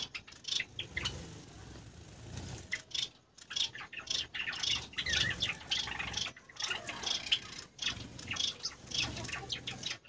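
Aviary finches, Gouldian finches and Java sparrows, giving many short, high chirps and calls, with a brief lull about three seconds in.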